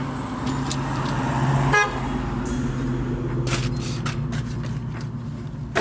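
A motor vehicle engine running steadily as a low, even hum, with a few light clicks and a short rattle about two seconds in.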